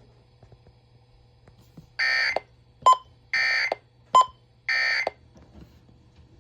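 Emergency Alert System end-of-message data tones on FM radio: three short bursts of screechy digital data, about a second apart, marking the end of the alert. Between the bursts come two sharp clicks with a brief high ring, the loudest sounds.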